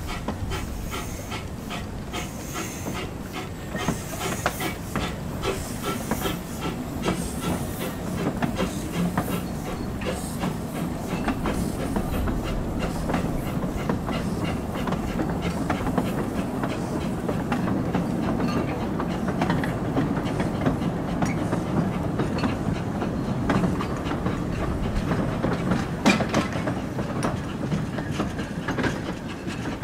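A narrow-gauge train hauled by a Hudswell Clarke 0-6-0 pannier tank steam locomotive runs past. Its wheels click over the rail joints under a steady rumble, with steam hissing, and there is one sharper knock near the end.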